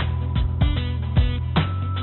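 Background music with a steady beat: deep drum hits about twice a second over held notes.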